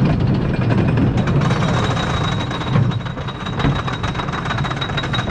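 Wooden roller coaster train climbing a chain lift hill, its lift chain and running gear giving a rapid, steady clatter. A thin steady high whine joins about a second in.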